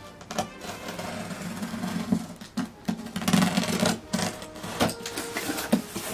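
Box cutter slicing along the packing tape of a cardboard shipping box: a scratchy, ratcheting scrape with a few sharp clicks.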